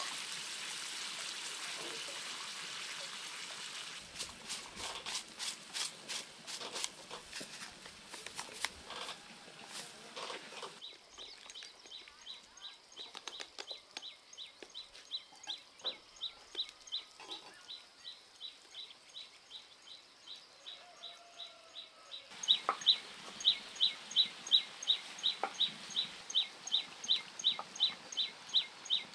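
A high chirp repeated evenly, about three times a second, which grows louder about two-thirds of the way in. It is preceded by a steady hiss and then a string of sharp clicks.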